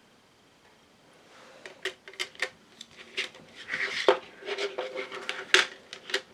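Plastic disc packaging being handled: after a quiet second, a run of sharp plastic clicks and clatters with some rubbing, the loudest snaps near the middle and toward the end, as a disc is taken out of its case.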